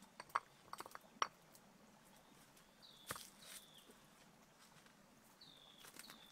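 A few sharp clicks and knocks of hard objects being handled on a rock, loudest in the first second and a half, with another about three seconds in. A bird gives a short whistling call twice, around three seconds in and again near the end.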